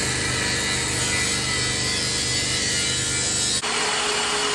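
Power tool running on the exhaust pipe metal: a steady motor hum with a hissing grinding noise, the sound changing abruptly about three and a half seconds in to a thinner, steady tone.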